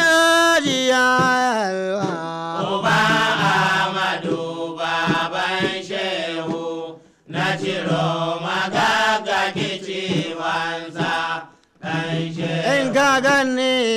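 Hausa praise singing: a sung voice holding long, wavering notes in chant-like phrases, with two short breaks about seven and eleven and a half seconds in.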